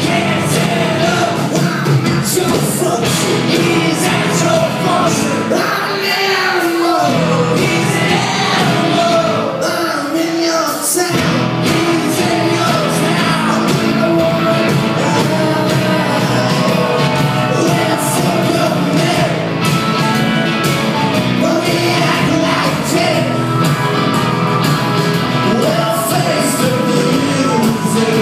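Rock band playing live in a concert hall: a voice singing over electric guitars and drums, heard from the audience. The bass end drops out briefly twice, and the full band comes back in about eleven seconds in.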